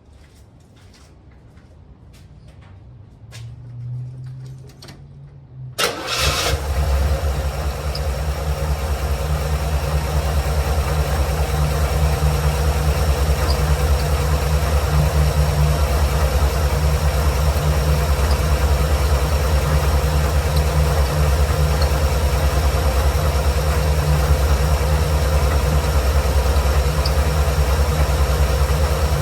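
1989 Chevrolet Caprice's engine started after faint clicks in the first few seconds; it catches suddenly about six seconds in and settles into a steady idle. This is the first start on a newly installed alternator.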